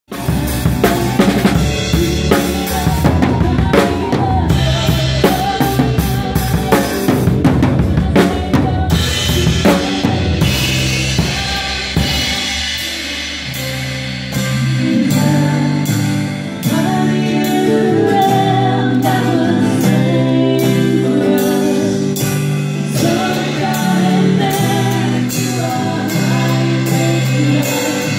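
Live band playing through a stage sound check, the drum kit prominent with kick drum, snare and rimshots over sustained keyboard and acoustic guitar chords. The drumming is busiest in the first nine seconds or so, then eases back under held chords and dips in level before the full band picks up again.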